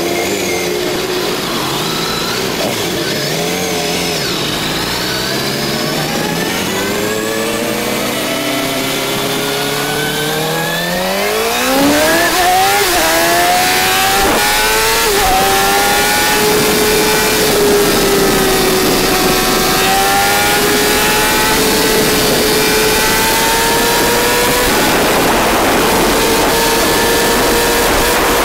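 Suzuki GSX-R sportbike's inline-four engine at full throttle, its pitch climbing steeply, dropping briefly at two quick upshifts a little under halfway through, then holding high revs and creeping slowly higher as the bike runs toward top speed. Wind rush on the microphone grows much louder after the shifts.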